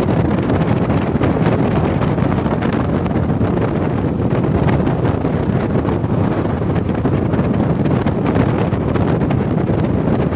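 Steady rush of wind buffeting the microphone, over the road noise of a moving vehicle.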